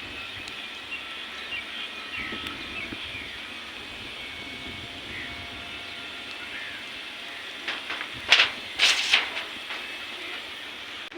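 Steady hiss of light rain outdoors, with faint short chirps. A few loud rushing bursts come about eight to nine seconds in.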